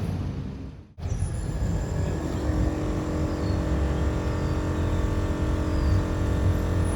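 A car engine running with a steady low rumble and a steady hum. The sound dips away and cuts back in abruptly about a second in.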